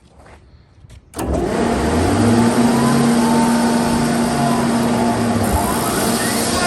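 Sullivan Palatek 50UD 50 hp rotary screw air compressor, driven by a three-phase electric motor, starting up: about a second in it comes on suddenly, its pitch rising as it spins up to speed, then runs steadily with a steady hum. A whine rising in pitch comes in near the end.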